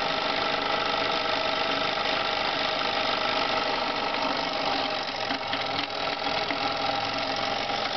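Model steam engine running steadily, turning its flywheel and driving small belt-driven accessory models, with a steady mechanical running sound made up of several held tones.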